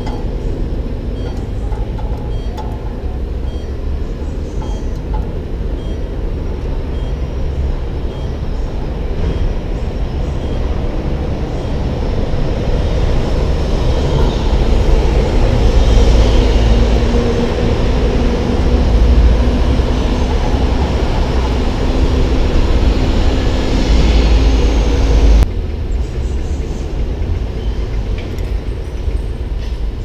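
City street traffic: a steady low rumble that swells about halfway through as a heavy vehicle's engine runs in the street, with a faint hum, then drops off abruptly near the end.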